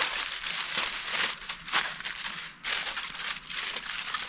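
Reynolds Wrap aluminium foil crinkling as it is pressed and folded into a baking pan, an uneven run of crackles with a brief lull about two and a half seconds in.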